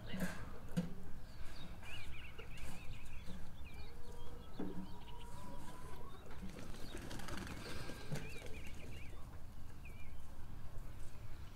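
A flock of backyard hens clucking quietly as they peck through compost mulch, with many high chirps and trills throughout and one held note about midway.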